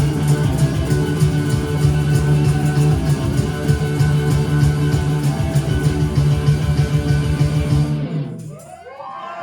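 Live indie rock band playing the loud instrumental close of a song on electric guitars, bass and drums. The band stops abruptly about eight seconds in, and the crowd starts cheering.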